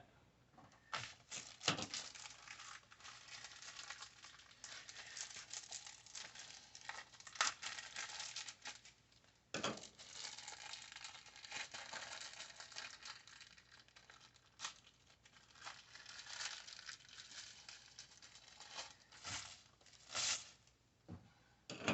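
Rummaging through parts by hand: irregular crinkling and rustling, with scattered small clicks and taps.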